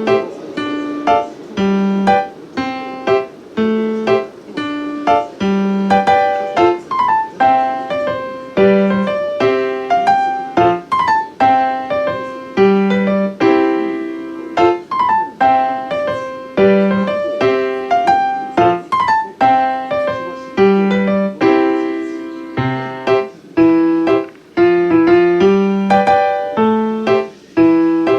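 Background music: a piano playing a steady, gentle melody of separate notes.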